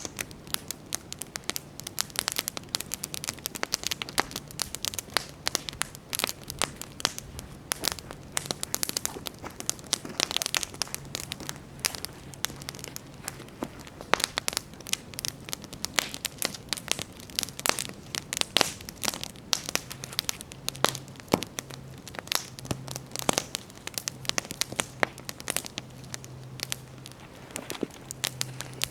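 Wood campfire burning and crackling, with a steady stream of irregular sharp pops and snaps from the burning logs.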